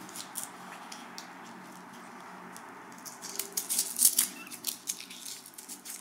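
Hook-and-loop (Velcro) closure of a Kevlar watch strap being fastened around the wrist: a run of short, scratchy crackles starting about halfway through, over a faint hiss.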